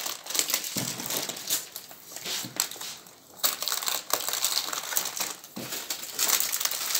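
Plastic and paper wrapping crinkling and crackling irregularly as it is handled and pulled open, with a short lull about three seconds in.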